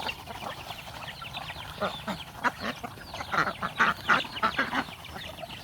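A flock of ducks calling: many short, overlapping calls and peeps that grow busier and louder from about two seconds in.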